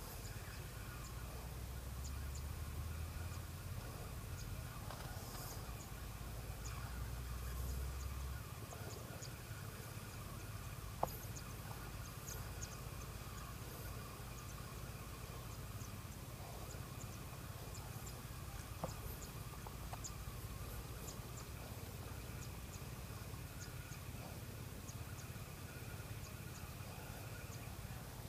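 Quiet open-air ambience by a pond: wind buffets the microphone for about the first eight seconds under a faint steady background hum, with two small clicks about a third and two thirds of the way through.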